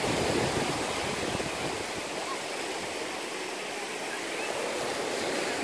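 Small waves washing up a sandy beach: a steady rush of surf, a little louder in the first second.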